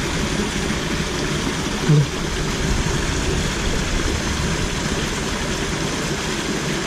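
Water rushing steadily as a small cascade pours into a ditch pool. There is a brief low sound about two seconds in.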